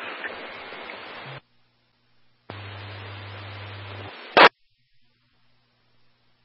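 Police radio scanner static between transmissions. A hiss from an open channel cuts off about a second and a half in, and a second stretch of hiss with a low hum starts about a second later. It ends in a short, loud burst of noise, the squelch closing.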